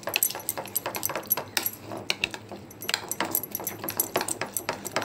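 Spoon clicking and scraping against a bowl in rapid, irregular strokes as beaten eggs with chopped onion, coriander and green chilli are stirred together.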